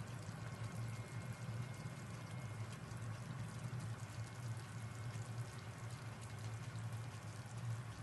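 Chicken liver and broccoli in sauce simmering in a nonstick pan: faint, steady bubbling and light crackling over a low steady hum.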